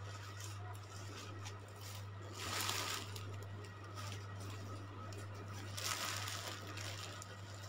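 A low, steady hum, with two brief rustles about two and a half seconds in and again about six seconds in.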